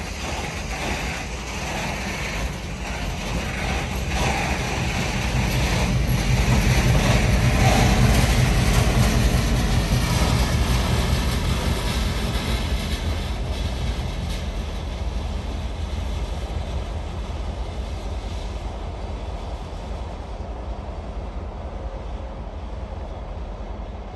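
Freight train led by an FGC locomotive rolling past: a low engine rumble with rolling wheel and wagon noise. It builds to its loudest about a third of the way in, then fades slowly as the train draws away.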